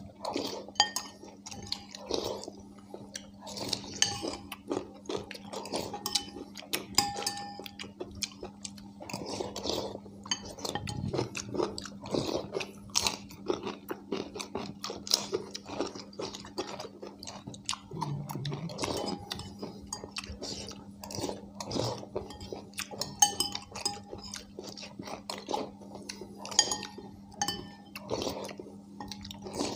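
Spoons clinking and scraping against ceramic bowls at an irregular pace as two people hurriedly eat haleem, with chewing mixed in. A steady low hum runs underneath.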